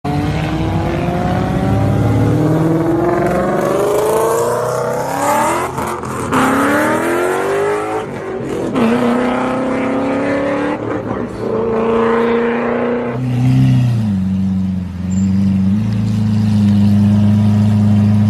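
Car engine accelerating hard through the gears: the engine note climbs and falls back at each shift, about four times. It then settles into a steady, lower note for the last few seconds.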